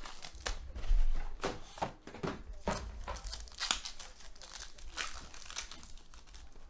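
Foil wrapper of a football trading-card pack being crinkled and torn open by hand, an irregular run of crackles, with a low thump about a second in.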